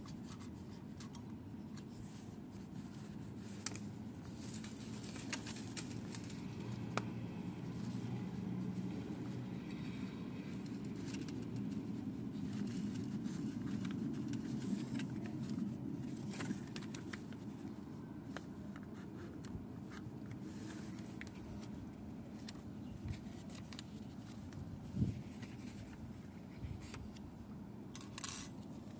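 Faint handling noises: small wire paper clips clicking and scraping as they are slid onto notebook pages and picked up from a wooden desk, with a few slightly louder knocks, over a steady low rumble.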